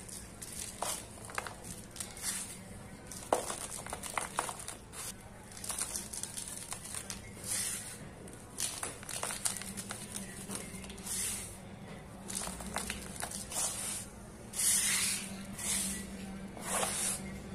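Hands sweeping and rubbing dry sand and cement powder across a hard surface: repeated short gritty swishes and crackles of the crumbling grains, over a faint steady low hum.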